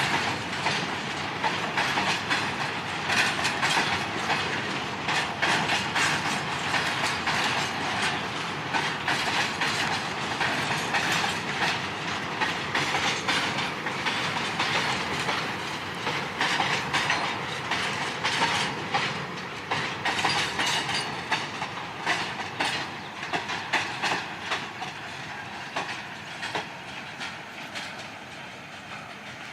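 A train rolling past close by, its wheels clacking over the rail joints in a rapid, uneven run of clicks. The sound slowly fades over the last several seconds.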